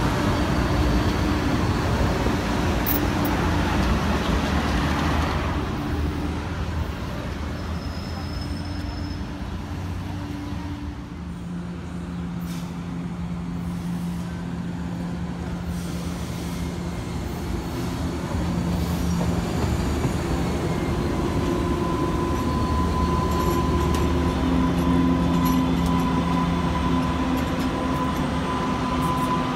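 MBTA Green Line light-rail trolleys: one pulls away from the stop and its running noise fades, then another approaches and pulls in. Its steady motor hum and a high whine grow louder near the end.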